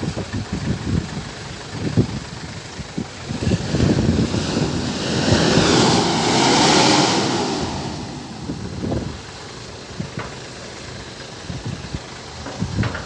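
A motor vehicle driving past, growing louder to a peak about halfway through and then fading away over roughly five seconds.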